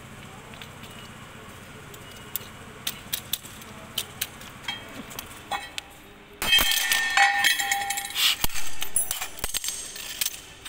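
Steel power-tiller rotor tines and a round side disc clinking against each other and the concrete floor as they are handled. At first there are scattered light clinks; from about six seconds in comes a dense run of louder metal clanking with a ringing tone.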